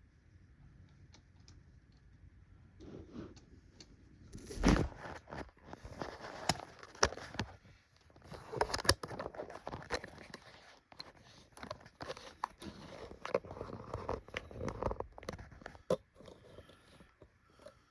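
Hands working on the plastic housing of a Hoover WindTunnel Supreme upright vacuum, taking it apart: a busy run of clicks, knocks, scrapes and crackles that starts about four and a half seconds in and dies down near the end.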